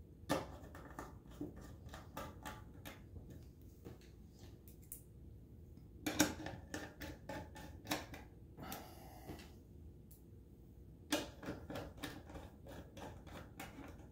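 Small screwdriver driving screws into an aluminum case cover: runs of quick, sharp metal clicks and ticks, coming in three bursts with pauses between.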